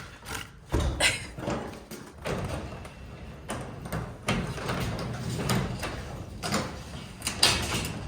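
A metal sectional garage door being lifted and fitted into place: irregular metallic knocks and rattles over a low rumble, with the sharpest knock near the end.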